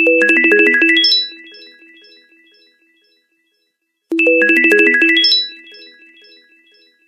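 A Samsung Galaxy S Giorgio Armani phone tone plays twice, about four seconds apart. Each time it is a quick run of bright synthesized keyboard notes that rings on in softer repeating notes and fades out over a couple of seconds.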